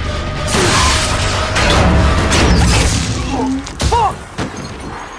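Battle sound of a tank firefight: a dense, loud rumble of gunfire and blasts for about three seconds. About four seconds in, a sharp hit of rounds striking metal in a shower of sparks, with a brief whine.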